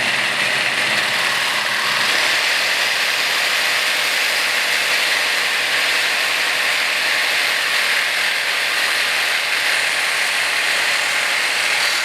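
Electric jigsaw clamped in a vise, running steadily as it cuts plastic.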